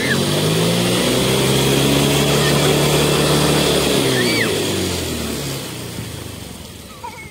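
Motor scooter engine revving with its rear wheel spinning in shallow floodwater and throwing up spray. The engine holds a steady high pitch for about four seconds, then winds down as the throttle is let off.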